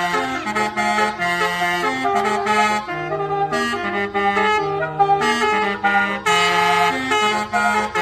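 Bus "basuri" telolet horn playing a melody: a run of sustained, reedy horn notes that step up and down in pitch several times a second.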